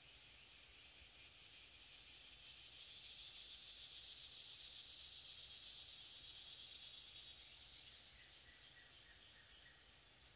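Faint outdoor insect drone, a steady high-pitched chirring. About eight seconds in it thins out and a faint repeated higher chirp comes in.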